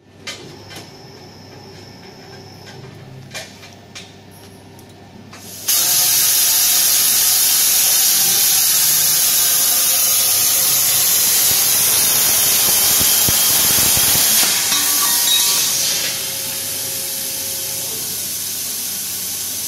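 CNC plasma cutting torch firing its arc on a metal pipe: a few light clicks, then a sudden loud, steady hiss starts about a quarter of the way in as it cuts. About three quarters of the way in the hiss drops to a quieter steady hiss.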